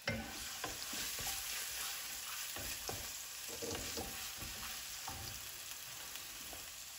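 Crushed ginger, garlic and green chilli sizzling in hot oil in a pan, the sizzle starting suddenly as it goes in, with a spoon stirring and scraping now and then.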